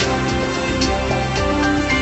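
Television news theme music: sustained synthesizer notes over a steady percussive beat.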